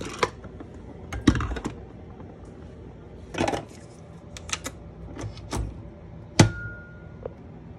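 Breville Nespresso capsule machine being opened and loaded by hand: scattered plastic clicks and knocks, then one loud clunk about six and a half seconds in as the lever is closed, followed by a brief ringing tone.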